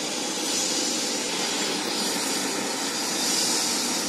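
Steady, even rushing hiss with no breaks or distinct events.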